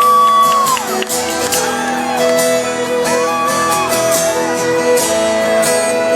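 Live country band playing an instrumental passage, with strummed acoustic guitar and sustained, bending lead notes over it.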